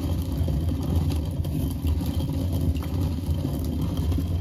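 Hand-turned stone quern grinding grain: the upper millstone is turned round by its wooden handle, giving a steady low grinding rumble.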